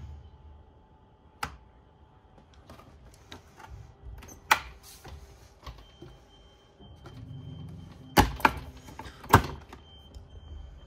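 Sharp plastic clicks and knocks from a train seat's fold-down tray table being handled: one loud knock near the middle as it comes down, then three in quick succession about two-thirds through as it is folded back up and latched.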